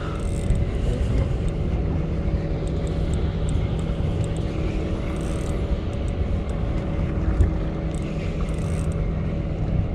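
Boat engine running steadily with a low hum.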